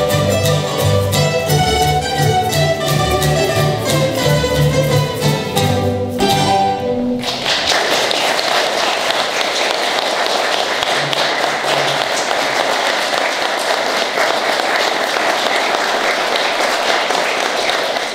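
A plucked-string ensemble of mandolins, guitars and double bass plays the last bars of a tune with a steady bass line, closing on a final chord about six seconds in. Then an audience applauds steadily for about ten seconds, and the sound cuts off at the very end.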